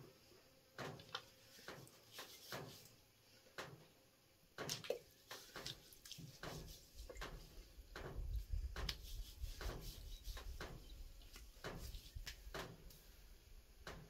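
Liquid poured from a plastic bottle onto a head over a washbasin: soft, irregular splashes and drips as hands work it into the hair. A low rumble joins in from about halfway.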